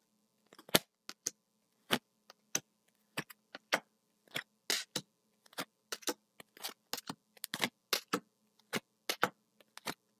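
Tarot cards being dealt from the deck and laid down on a table: an irregular run of short, sharp taps and snaps of card on card and card on tabletop, about three a second.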